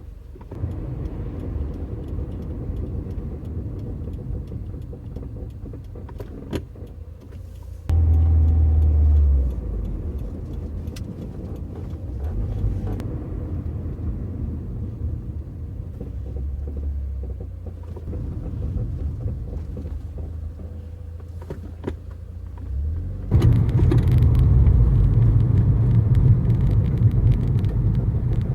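2015 Subaru WRX with a low rumbling noise, which its owner hears when braking and likens to a roller coaster coming to a stop; he suspects a brake fault that the dealer has not fixed. The rumble runs throughout, with a loud surge about eight seconds in and a loud stretch near the end.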